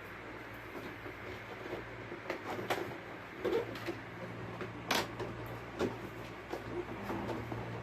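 Scattered light knocks and clicks from handling the air conditioner unit while it is being taken apart, the sharpest about five seconds in, over a steady low hum.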